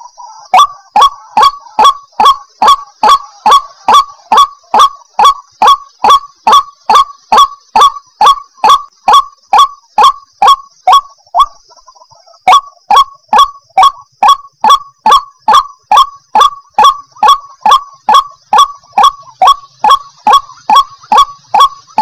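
White-breasted waterhen calling: a fast, even run of short, harsh 'ruak' notes, about three a second, each dropping in pitch. The run breaks off for about a second midway, then carries on at the same pace.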